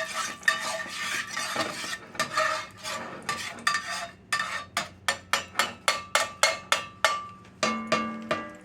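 Metal utensil stirring and scraping in cookware, then a quick run of sharp taps, about four a second, ringing on metal as the utensil is knocked against the rim.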